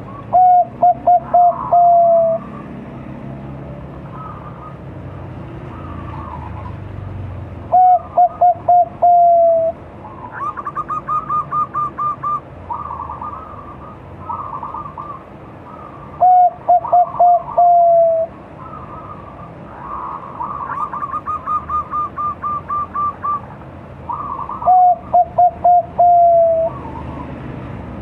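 A five-month-old zebra dove of the Bangkok perkutut strain cooing its song four times, about eight seconds apart. Each phrase is a quick run of short coos ending in a longer drawn-out note that falls slightly. Between the phrases come fainter, higher runs of quick notes.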